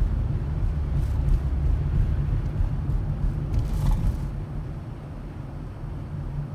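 Car driving, heard from inside the cabin: a steady low road and engine rumble. A brief hiss comes about four seconds in, after which the rumble drops a little.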